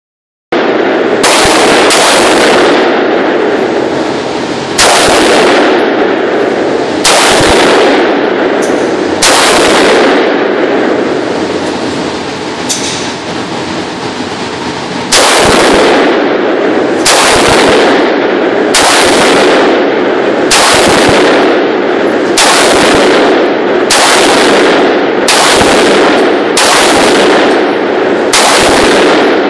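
AR-15-style rifle fired semi-automatically, about twenty shots at an uneven pace, mostly a second or so apart with a few longer pauses. Each very loud crack rings on in the echo of the indoor range.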